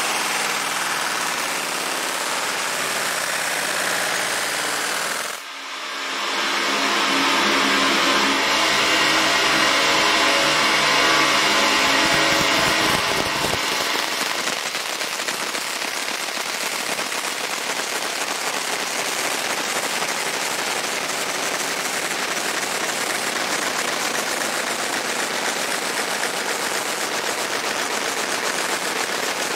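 Fiber laser engraving the steel of a Glock 19 slide: a steady, rapid crackling buzz as the pulsed beam marks the metal. The crackle drops out briefly about five seconds in and then resumes, with a low pitched hum running under it for several seconds.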